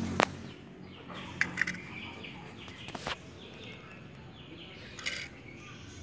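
Lovebird chirping in short, high, falling calls, with a few sharp clicks scattered through.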